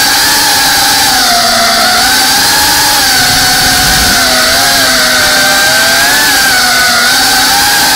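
FPV quadcopter's brushless motors and propellers buzzing loudly, heard from the camera on board, the pitch wavering gently up and down.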